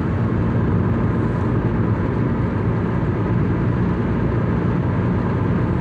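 Steady road and engine noise of a car driving along a highway, a constant low hum under a wash of tyre noise.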